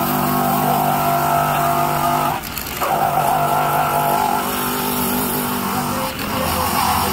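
Handheld rotary grinder with a small abrasive buffing wheel grinding the rubber around a cut in a tyre sidewall, roughening it for repair. A steady whine, with two short dips.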